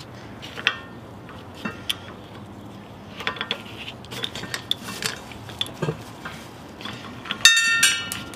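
Pistons of a disassembled truck A/C compressor clinking and rattling against each other as the assembly is handled, with short ringing metallic clinks scattered through and a louder cluster of them near the end.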